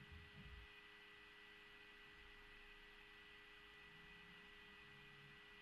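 Near silence: faint room tone with a steady thin high whine and a low hum.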